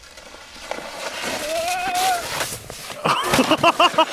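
A rushing hiss of a plastic sled sliding over snow and ice builds up, with a drawn-out wavering yell in the middle, then hearty rapid laughter from about three seconds in.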